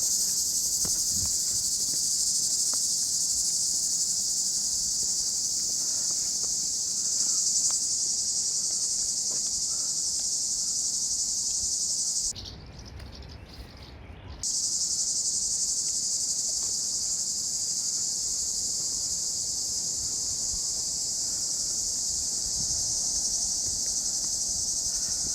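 A dense, steady chorus of cicadas buzzing in summer heat. About halfway through it drops out for about two seconds, leaving a low rumble, then comes back.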